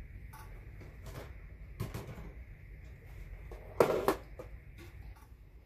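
Handling of a clear plastic container on a granite kitchen counter: scattered light knocks and clicks, with a louder clatter about four seconds in as it is set down. A steady low hum runs underneath.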